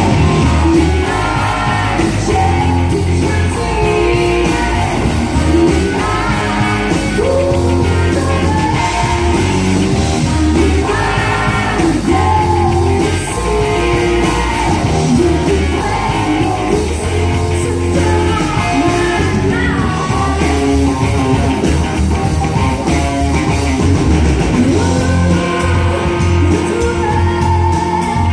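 A live rock band playing: a woman sings lead over electric guitars, bass and drums, the bass line pulsing steadily under the sung melody.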